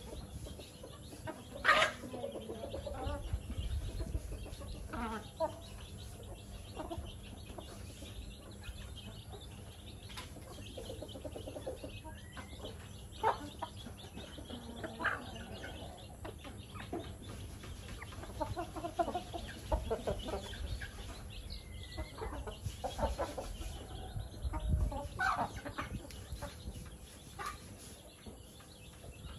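A small flock of chickens clucking now and then with short, scattered calls while they peck at food on the ground, one sharp call about two seconds in.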